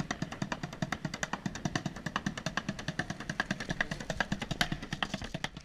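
Fast, steady drumming on a makeshift street kit of a plastic bucket and boxes, many sharp strikes a second.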